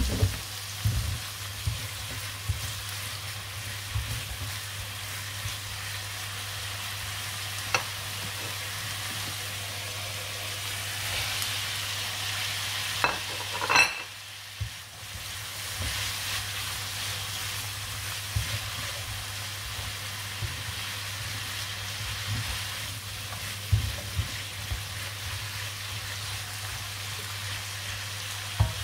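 Garlic sprout and prawn stir-fry sizzling in a pan while being stirred, with a spatula knocking and scraping against the pan every few seconds. About halfway through there is a brief louder clatter, after which the sizzle drops for a moment.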